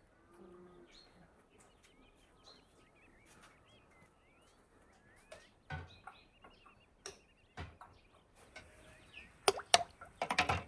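Small birds chirp softly in the background. Then come a series of sharp knocks and clinks, the glass jars knocking against each other and the aluminium pot of water as they are set in. The knocks come sparsely at first and crowd together, loudest, near the end.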